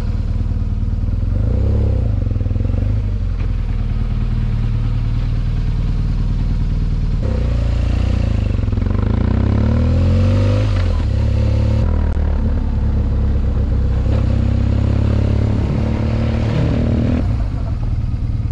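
BMW R1200GS Adventure's flat-twin engine running while the motorcycle is ridden along a gravel road, its pitch rising and falling around the middle as the throttle changes.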